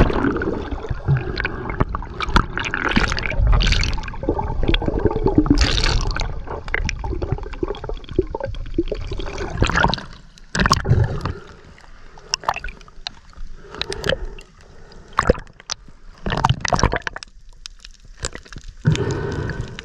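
Water sloshing and gurgling close to the microphone, with irregular knocks and scrapes. It is busy for the first half and thins to scattered splashes and knocks later.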